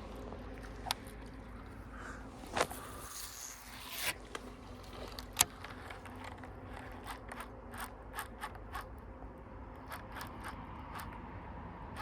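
Fishing rod and reel in use: a cast with the line hissing off the spool for about a second and a half, ended by a click, then the reel being wound in with a run of quick light ticks.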